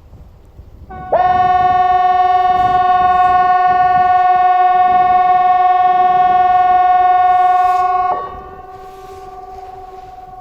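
CA 370 outdoor warning siren sounding one steady, loud tone that starts about a second in and holds for about seven seconds, then falls away to a much fainter tone of the same pitch. This is a blast of the Swedish public warning system's quarterly test signal.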